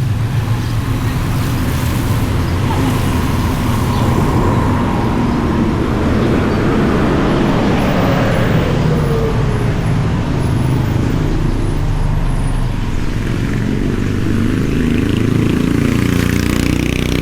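Road traffic: a motor vehicle engine runs steadily, and a vehicle passes about halfway through, its pitch falling as it goes by.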